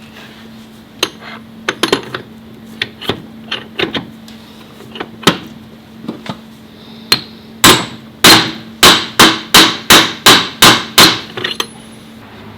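Hammering: scattered single blows, then a run of about ten hard, evenly spaced strikes, roughly three a second, in the second half.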